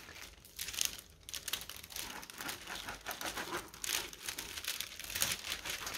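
Crinkling and rustling of plastic, in irregular crackles, as a large flexible plastic scraper is handled and pressed over a diamond painting canvas's clear protective film.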